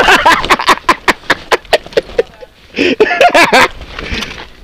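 Mountain bike rattling over a rocky trail: a quick run of sharp clacks and knocks as the bike's frame and parts jolt over the rocks. About three seconds in, a rider's voice calls out briefly.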